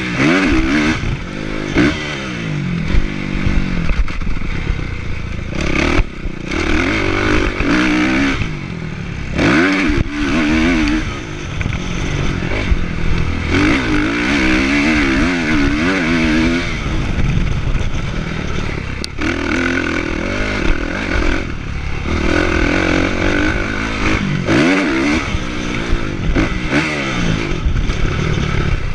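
Kawasaki motocross bike's engine revving up and falling back over and over as it is ridden around the track, with clattering knocks from the bike over bumps.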